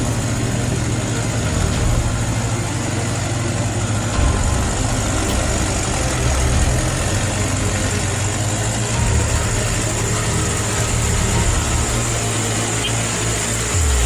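Truck engine sound running steadily at low revs, rising slightly in a few brief swells, with a thin high whine over it.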